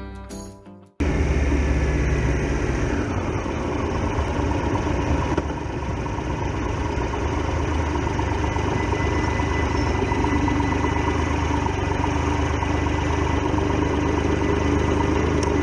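Triumph Tiger Explorer XRx motorcycle's three-cylinder engine running, its note falling over the first few seconds as the bike slows, then idling steadily.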